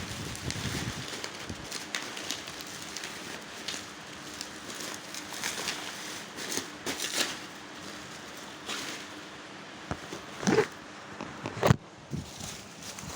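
Parcel packaging being handled and opened: crinkling and rustling plastic wrapping with many small scattered clicks, and two louder knocks near the end.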